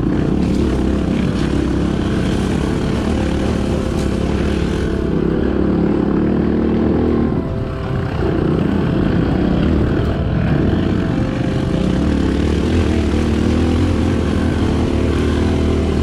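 Enduro dirt bike engine running steadily under way, with a brief drop in level about halfway through.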